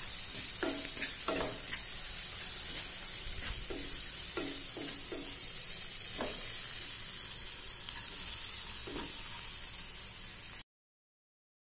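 Tomatoes and chillies sizzling in hot oil in a kadai, with a wooden spatula scraping and knocking against the pan about nine times as they are stirred. The sound cuts off suddenly near the end.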